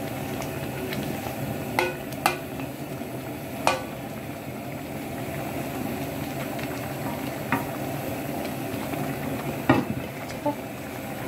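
Rice vermicelli with sausage and egg cooking in broth in a large aluminium wok, a steady hiss of the bubbling pan. A few sharp knocks of a bowl and a wooden spatula against the wok, the loudest about ten seconds in.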